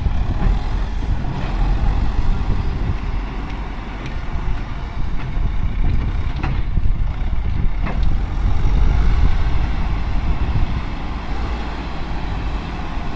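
Caterpillar 936F wheel loader's diesel engine running hard while it loads a dump truck, its revs rising and falling as it dumps, backs off and drives in with a full bucket; it is loudest about nine seconds in.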